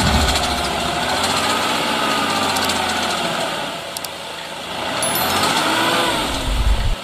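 Light dump truck's engine running while its hydraulic tipper raises the bed to dump a load of soil. The engine pitch rises and falls twice.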